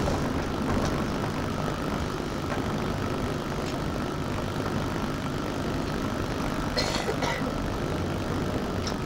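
A bus engine running and road noise heard from inside the bus as it drives through city traffic, with a steady low rumble. A couple of short clicks about seven seconds in.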